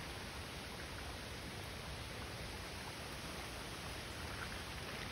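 Steady, even hiss of falling rain, with no distinct drops or other events standing out.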